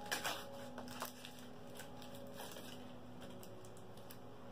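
A foil Pokémon card booster pack being torn open and crinkled in the hands, with a few sharp crackles in about the first second and quieter handling after.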